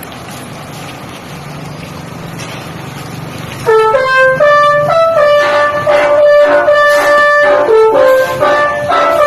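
A bus's telolet horn, a set of multi-tone air horns, starts playing a loud melody of held, stepped notes about four seconds in. Before it there is a low, steady rumble of vehicle noise.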